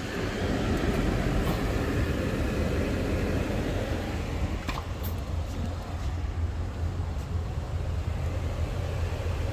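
Steady low rumble heard inside a car's cabin, with a few light clicks about five seconds in.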